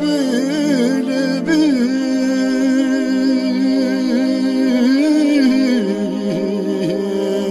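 Male voice singing a long, drawn-out melismatic line in a Central Albanian song, with turns and dips around the pitch and one note held for a couple of seconds in the middle. Sustained keyboard chords play underneath.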